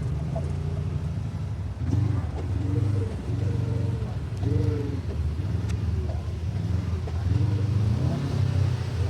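A UTV engine running under load over rough ground, with a steady low rumble. Its pitch swells up and down several times as the throttle is worked.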